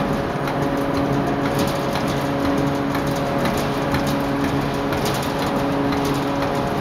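Bar forging machine running: a steady machine hum that breaks off briefly about every second and a half, over a rattling noise with scattered clicks.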